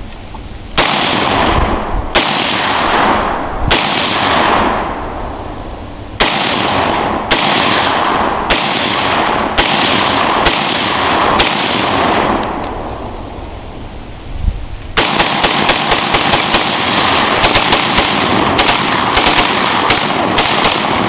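Romanian WASR-10 AK-47 rifle (7.62×39mm) firing outdoors. It starts with about nine single shots, roughly one a second, each with a long echoing tail. After a short pause, from about fifteen seconds in, comes a fast, continuous string of shots as the rifle is bump-fired from the hip.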